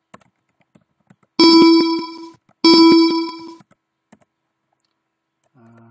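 A computer's electronic alert chime sounds twice, about a second and a quarter apart. Each ding rings on and fades out over about a second. Light keyboard key clicks are heard around them.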